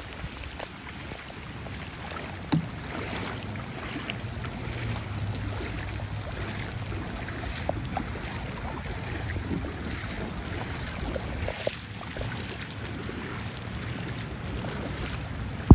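Kayak paddle strokes splashing in shallow floodwater, with scattered small splashes and drips over steady wind rumble on the microphone. A sharp knock sounds near the end.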